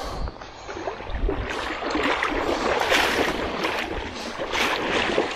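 Water splashing and sloshing in irregular surges, starting suddenly.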